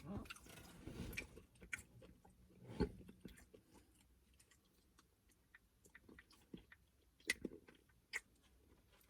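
Close-up eating sounds: wet chewing and lip smacks with scattered small clicks and crunches, busiest in the first second and around three seconds in, then sparse sharp clicks.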